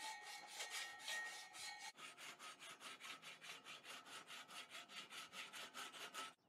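Sandpaper rubbed back and forth by hand on the bare, sandblasted steel of a Ford Model A wire wheel, in quick, even scraping strokes of about four a second. About two seconds in it changes to faster strokes of about five a second, which stop abruptly near the end. This is the surface clean-up of the metal before the wheel is painted.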